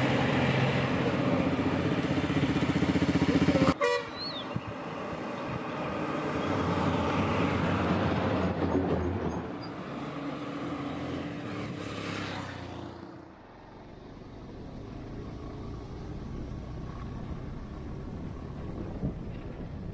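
Road vehicles passing close by: a pickup truck's engine, cut off sharply about four seconds in, then a large bus engine going past. About thirteen seconds in, this gives way to a quieter, steady motorcycle ride with wind noise.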